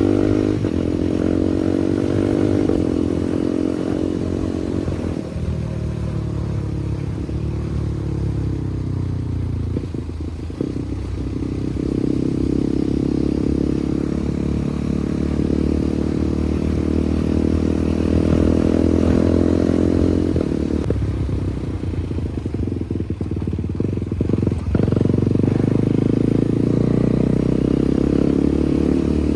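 KTM Duke 390 Gen 3's single-cylinder engine running loud through an SC Project aftermarket exhaust. The revs change through the stretch, with the engine pitch falling slowly several times and holding steadier in between.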